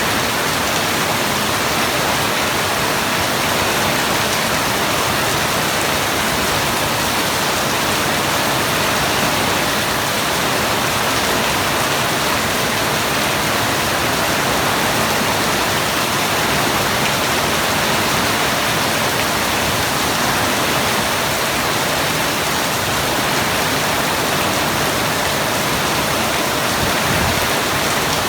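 Steady, heavy rain falling: a dense, even hiss with no separate drops standing out.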